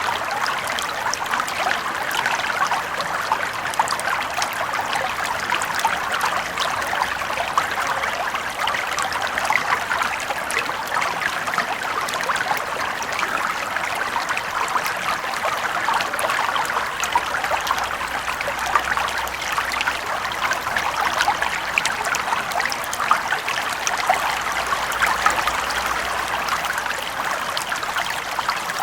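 Small brook flowing steadily over stones, a continuous trickling and rippling of shallow water with many small splashes.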